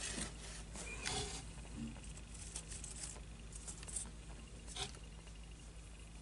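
Faint rustling and soft crinkling of tissue paper being handled, with scattered light clicks and taps; a sharper rustle comes about a second in and another near five seconds.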